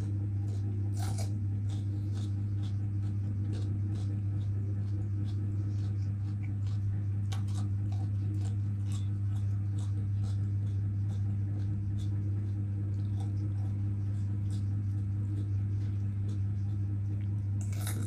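Raw bitter melon being chewed close to the microphone: many small crisp crunching clicks, with a stronger crunch of a fresh bite near the end. A steady low hum sits under it and is the loudest sound.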